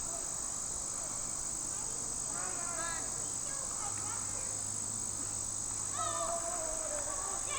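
Steady, high-pitched shrill of an insect chorus. Faint voices of people talking come in about a third of the way in and again near the end.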